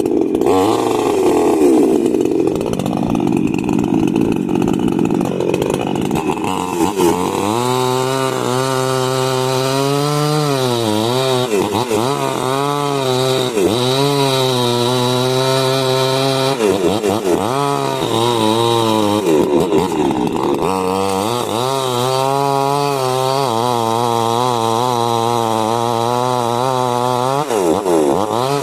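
Small Maestro chainsaw engine running at high speed while cutting wood. It sounds rough and uneven for the first several seconds, then settles into a steady high note whose pitch sags and recovers several times as the chain bites and eases in the cut.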